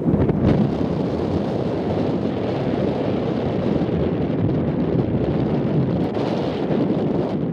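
Wind buffeting the microphone outdoors on an open sand dune, a steady rumbling noise that rises and falls without a break.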